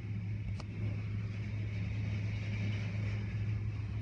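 Automatic car wash at work: cloth brush strips sweep over a car while water sprays, over a steady low hum.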